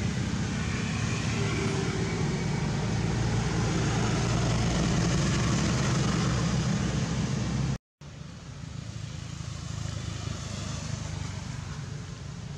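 Steady low hum of a motor vehicle engine running nearby. About eight seconds in it drops out for a moment and returns as a fainter rumble.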